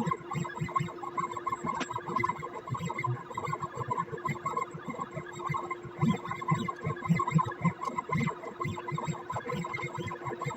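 CNC pen plotter's stepper motors running as the machine draws, a steady whine with an irregular low pulsing as the axes move.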